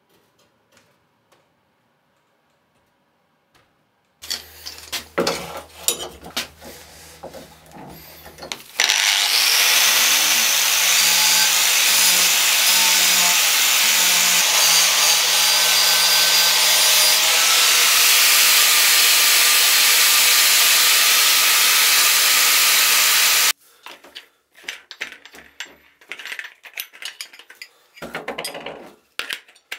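An angle grinder with an abrasive disc grinding the flat of a steel cleaver blade clamped to a bench: a loud, steady grinding noise lasting about fifteen seconds, which cuts off abruptly. Before it come a few knocks and handling sounds, and after it scattered clicks as the blade is handled.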